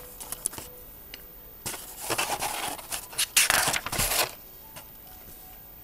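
Pages of a paper instruction booklet being turned and handled: two bursts of rustling, about two seconds in and again about three and a half seconds in, with a few light clicks.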